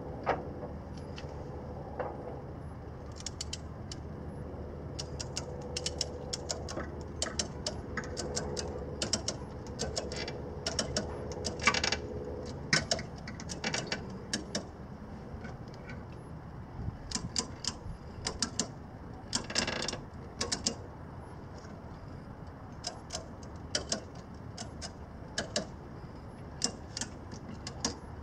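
Retractable ratcheting tie-down strap being worked: the ratchet clicking in quick runs of sharp clicks, with short pauses between runs.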